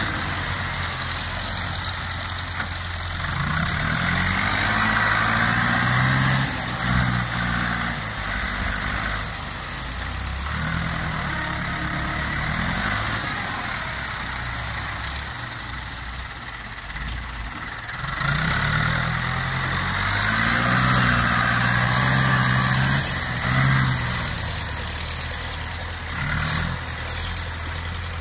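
Ford 6600 tractor's three-cylinder diesel engine working under load, pulling a disc plough through the soil. Its loud exhaust note rises and falls in pitch, and gets louder twice as the engine pulls harder.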